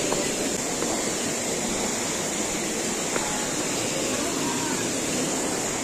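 Small waterfall pouring into a rocky pool: a steady, even rush of splashing water.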